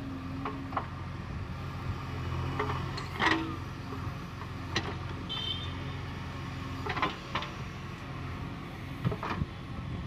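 JCB 3DX backhoe loader's diesel engine running steadily while the backhoe arm works, with a number of short knocks and clanks from the arm and bucket scattered through.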